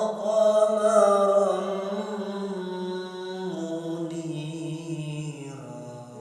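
A man reciting the Quran in a melodic chanted style, holding one long phrase that starts loud, slowly falls in pitch and fades away near the end.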